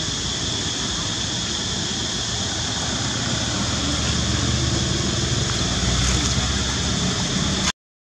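Steady outdoor background noise: a constant high hiss with a low rumble that swells in the second half, broken off abruptly near the end.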